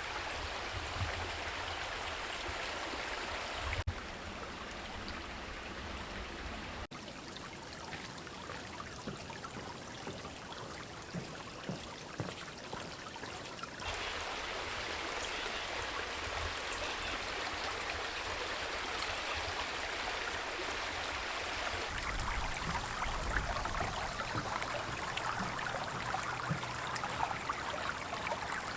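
Running water of a stream, an even rushing noise, heard across several short clips with abrupt changes in level where they are cut together.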